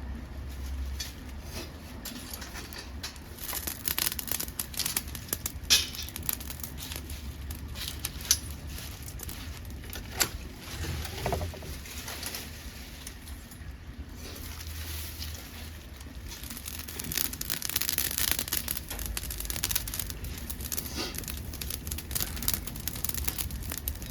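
Dead podocarpus wood burning in a homemade pail-can wood-gas stove, crackling steadily with many small pops and a few sharper snaps.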